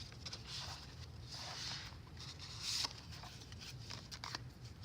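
Paper rustling and sliding as the pages and tucked papers of a handmade paper journal are handled and unfolded, with a few soft clicks and one louder swish a little past halfway.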